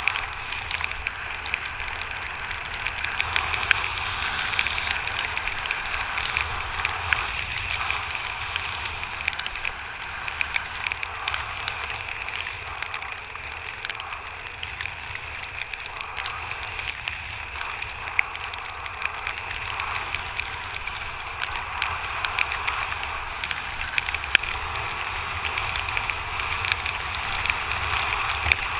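Steady rush of water and wind from a kiteboard skimming choppy water, heard through an action camera's waterproof housing, with many small ticks throughout.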